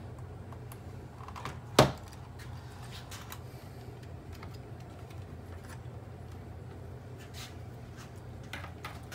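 Small plastic clicks and taps as wire-harness connectors are pushed onto a robot vacuum's circuit board and the wires are handled, with one sharp, louder click about two seconds in. A steady low hum runs underneath.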